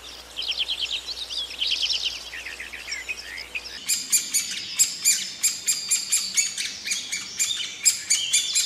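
A small bird chirping in quick trilled phrases. About four seconds in, a yellow-bellied sapsucker starts pecking at tree bark: a run of sharp, irregular taps, about three or four a second.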